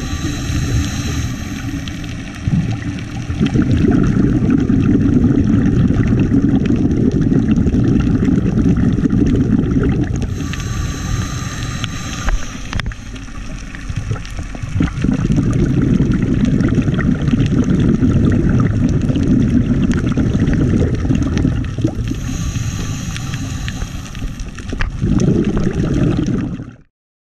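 Scuba diver breathing through a regulator underwater: three hissing inhalations with a faint whistle, each followed by several seconds of rumbling, gurgling exhaled bubbles. The sound cuts off suddenly near the end.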